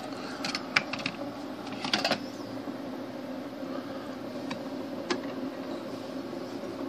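Keurig coffee maker heating water in its internal tank just after power-up: a steady low hum, with a few light clicks.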